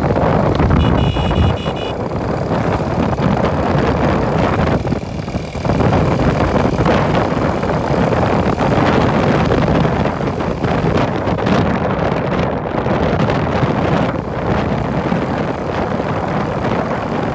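Motorcycle riding along, engine running under wind noise buffeting the microphone.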